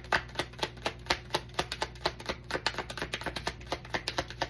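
Tarot cards being shuffled by hand: a rapid, steady run of crisp card clicks, about four to five a second.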